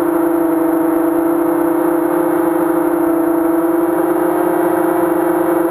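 Brushless motors and propellers of a 230 mm quadcopter (2206 2000kv motors, 5045 props, on a 3S pack) humming steadily in cruise flight, picked up by the onboard camera. The pitch holds steady, with a strong low tone and a stack of overtones.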